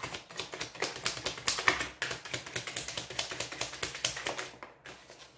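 A deck of tarot cards being shuffled by hand, a rapid run of quick clicks and flicks as the cards slap against each other, stopping near the end.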